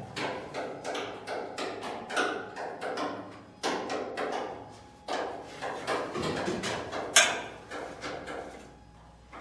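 Irregular clicking and light knocking, several clicks a second with a sharper knock about seven seconds in, heard inside a moored hydrofoil's hull. The clicking comes from turtles and fish feeding on algae in the river water around the hull.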